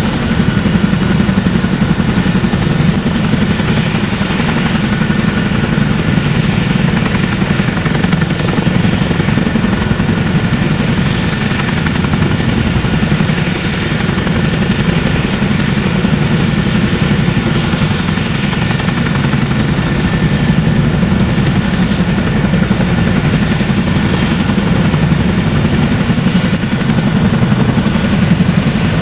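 RAF Boeing CH-47 Chinook helicopter running on the ground with both rotors turning: a steady rapid rotor beat under the steady high whine of its twin turboshaft engines.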